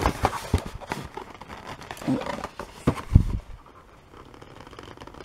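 Cardboard DVD collection box being opened and handled by hand: scraping and rustling of the cardboard, with a dull thump a little after three seconds in, then quieter.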